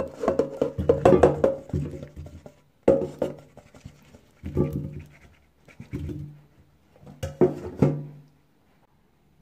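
Oiled potato wedges being tipped from a stainless steel bowl into an air fryer basket, clattering and scraping in five bursts. The metal bowl rings through each burst. The first burst is the longest, at about two and a half seconds.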